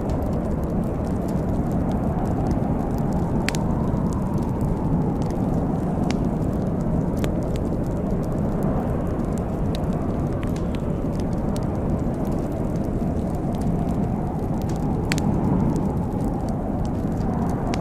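Wood fire in a fireplace crackling, with several sharp pops scattered over a steady low rumble.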